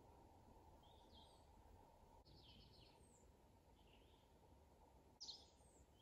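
Faint, very high-pitched thin whistles of an American robin's alarm call, the signal that a hawk is nearby. The short calls come about a second apart among other faint chirps, and the loudest comes about five seconds in.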